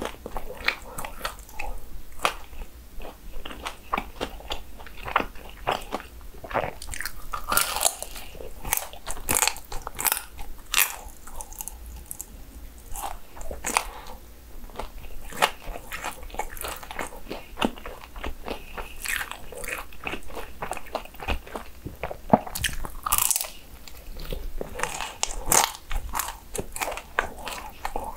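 A person biting into and chewing crisp churros, many sharp, irregular crunches following one another.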